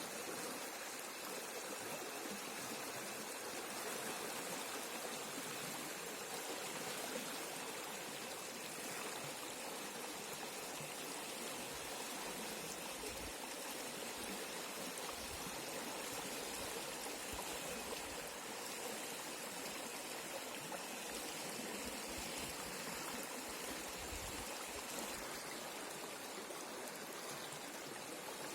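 Bhadra River water rushing steadily, an even unbroken rush of flowing water.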